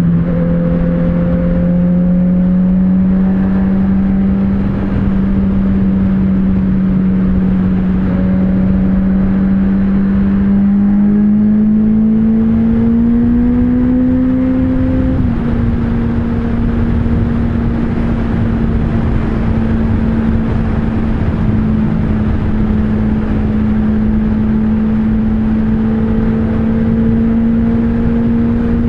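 Honda CBR650F inline-four engine running at steady high highway speed, with wind rushing over the helmet microphone. The engine note climbs slowly, dips slightly about fifteen seconds in, then holds steady.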